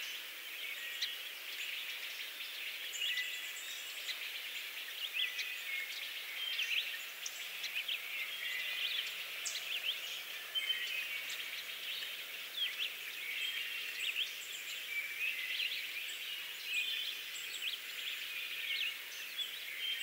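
Many birds chirping and calling at once: a dense, continuous chorus of short chirps, whistles and quick sweeps over a steady hiss.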